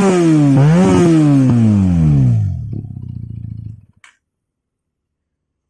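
Benelli TNT 300 parallel-twin engine with a newly fitted aftermarket exhaust, blipped by hand: the revs fall, rise once more about half a second in, then drop back to idle and stop abruptly about four seconds in.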